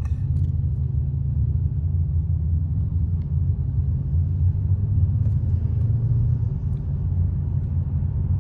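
Steady low rumble of a car's engine and tyres heard from inside the cabin of a moving taxi.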